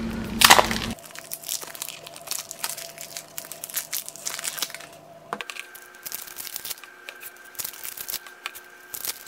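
Thin clear plastic packaging bag being torn open at its tear notch: one sharp rip about half a second in. Then a run of crinkling as the plastic is pulled away from the ink bottle inside.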